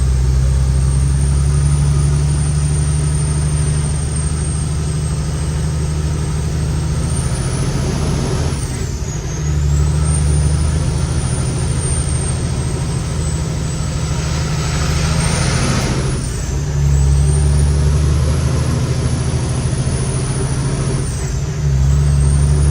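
Kenworth T800's Cummins X15 diesel engine pulling a 33-tonne load uphill, with a loud high whistle from its 15-inch air cleaners riding above it. Three times, about eight, sixteen and twenty-one seconds in, the engine note drops briefly and the whistle dips, then both climb back as the truck changes gear.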